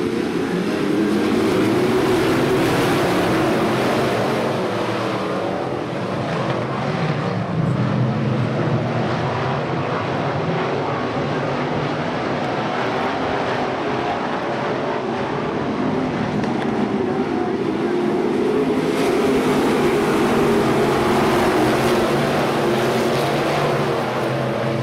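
Engines of a pack of USRA Limited Modified dirt-track race cars, small-block V8s, running together. Their pitches rise and fall over one another as the field circles, and the sound is a little louder for a few seconds near the end.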